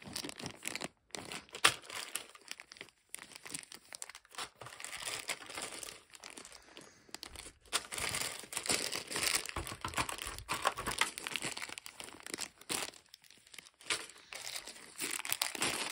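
Plastic zip-lock bags of small wooden game pieces crinkling irregularly as they are picked up, handled and set back into a board game box insert. About a second and a half in there is one sharp knock.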